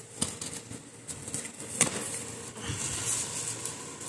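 Cardboard parcel box being handled and opened by hand: a few knocks and a sharp crack a little under two seconds in, then rustling of cardboard flaps and plastic wrapping.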